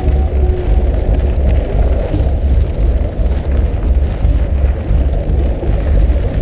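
Deep, dense rumbling drone of an electronic stage soundscape, steady and loud, with faint held tones sounding above it.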